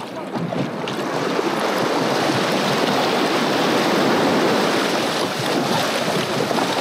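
Choppy sea water rushing and splashing against the hull of a moving pedal kayak, with wind on the microphone. The rush swells to its loudest about halfway through, then eases a little.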